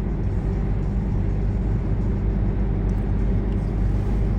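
Steady engine and road rumble of a car driving along a main road, heard from inside the cabin.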